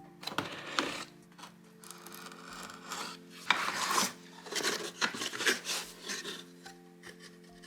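Rubbing and scraping of objects being handled, with scattered sharp clicks, loudest a little past the middle, over soft steady background music.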